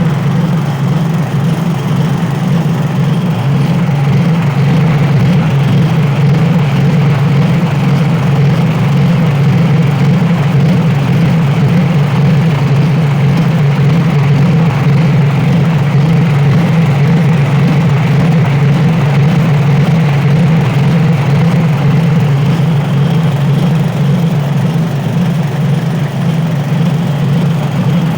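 A 7 hp petrol engine running steadily, driving a homemade walnut-hulling machine through a 1:25 reduction gearbox. It is loud, with a constant hum and a rough noisy layer on top.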